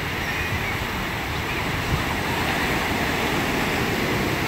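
Small waves breaking and washing up a sandy shore, with wind rumbling on the microphone.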